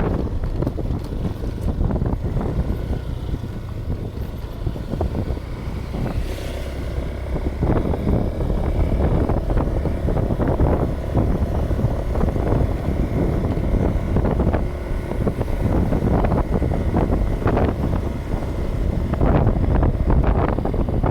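Wind buffeting the microphone over a steady low rumble, with irregular gusts flaring up throughout.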